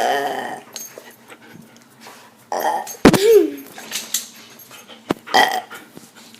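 A pet dog vocalizing in three short calls, the middle one rising and falling in pitch.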